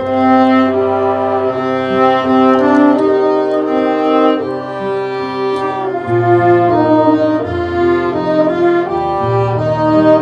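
Instrumental music: several pitched instruments play a melody over held chords and a bass line, with the bass shifting about six seconds in and again near the end.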